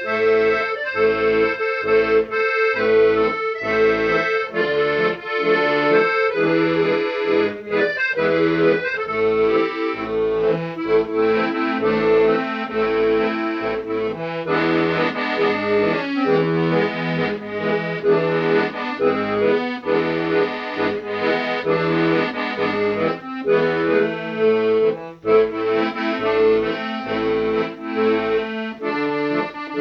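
Accordion music: a melody played over a steady, evenly pulsed bass accompaniment.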